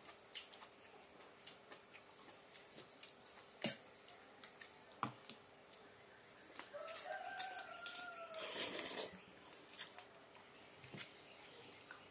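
Spoons and forks clicking against bowls and slurping of noodle soup, with one sharp clink about three and a half seconds in. About seven seconds in, a rooster crows once in the background, a call of nearly two seconds.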